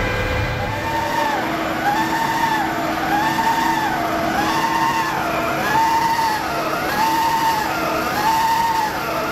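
Heavy-duty lathe cutting metal: a tool squeal rises and falls in pitch about once a second, over a steady machine hum and the hiss of the cut.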